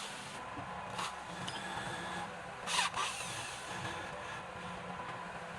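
Woodworking power tool running steadily, with two short louder bursts of noise about a second in and near the three-second mark.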